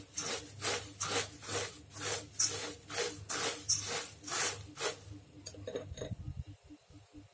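Spoon stirring crisp fried poha (flattened rice) in a stainless steel bowl, a crispy rustling scrape about three strokes a second. The stirring stops about five seconds in.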